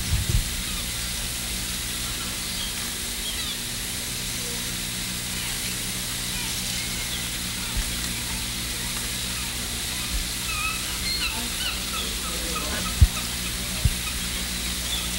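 Steady low electrical hum and hiss, with faint short high chirps scattered through the middle and two sharp clicks near the end.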